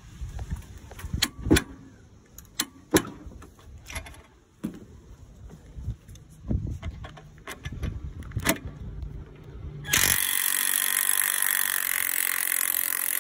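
Scattered clicks and knocks of tools being handled. Then, about ten seconds in, a battery-powered Lvidian impact wrench runs hard for about three seconds, breaking loose a bolt torqued to 140 ft-lb, and stops abruptly.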